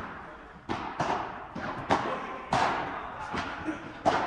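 Padel rally: the ball struck by rackets and bouncing off the court and walls, about five sharp hits at irregular intervals, each ringing on briefly.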